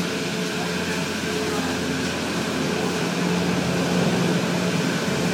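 Return-terminal machinery of a Doppelmayr UNI-G detachable lift running: the rows of rubber-tyred conveyor wheels turning, a steady mechanical hum with a constant drone, growing slightly louder near the end.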